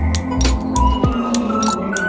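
Music with a steady, pulsing beat, sharp percussive clicks and a bright, chiming melody.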